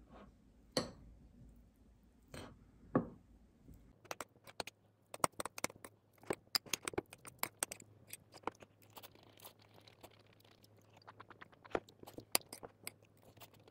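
Metal fork clinking and scraping against a ceramic plate while mixing rice and a fried egg. A few separate knocks come first, then from about four seconds in a rapid run of clicks.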